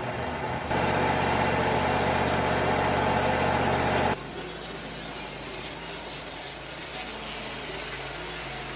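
Bandsaw sawmill running, its engine and blade sawing through cedar board edges; about four seconds in it drops suddenly to a quieter, lower steady running.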